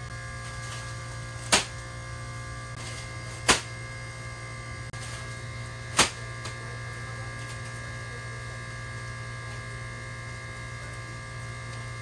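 A steady electrical hum made of several level tones, broken by three sharp clicks in the first half.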